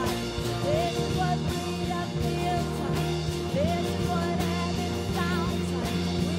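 Live worship band music: sustained chords under a steady drum beat, with a lead melody that slides between notes.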